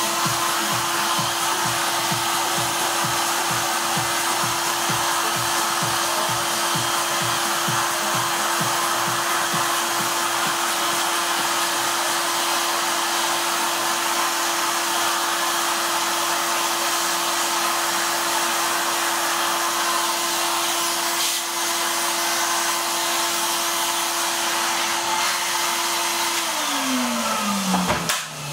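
Henry canister vacuum cleaner running steadily, sucking dust out of an opened reel-to-reel tape recorder's chassis. Near the end it is switched off and the motor winds down in a falling whine, followed by a few knocks.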